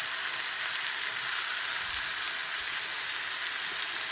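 Steady sizzling hiss of pork front leg meat grilling over wood charcoal.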